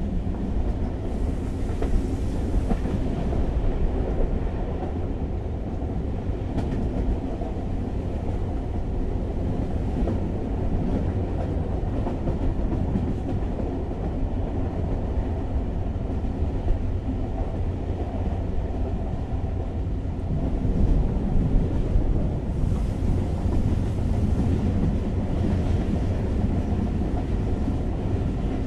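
Passenger train running at speed, heard from inside the carriage: a steady low rumble of wheels on the track with a few faint clicks. The running noise grows louder and hissier about three-quarters of the way through.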